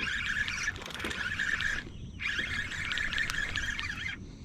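Fishing reel being cranked to bring in a hooked trout: a whirring buzz in about three spells, with short pauses between.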